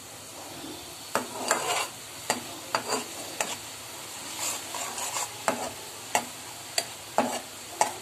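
Steel spoon scraping and clanking against a metal kadhai, about a dozen irregular strokes, while stirring a masala of onion, ginger-garlic paste and green chillies frying in oil with a little water. A steady sizzle runs underneath.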